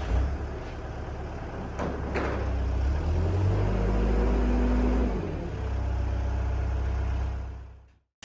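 Custom-built 72-inch sawmill running into a fresh cut through a cherry log: a steady low machine drone with two sharp knocks about two seconds in, fading out near the end.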